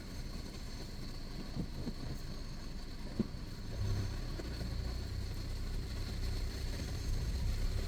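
Low, steady rumble of a vehicle driving on a rough off-road track, with one short knock about three seconds in and a faint steady high tone throughout.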